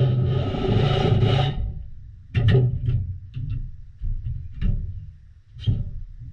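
Background guitar music, with chords struck several times and left to ring.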